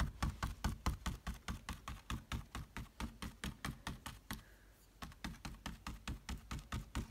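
An old shaggy paintbrush dabbing acrylic paint onto a stretched canvas, making rapid taps about five or six a second, with a short pause a little past the middle.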